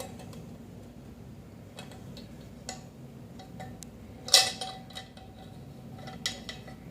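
Metal parts of a lever espresso machine's piston assembly clinking as they are handled. A few light clicks and one louder metallic clank about four seconds in, which rings briefly.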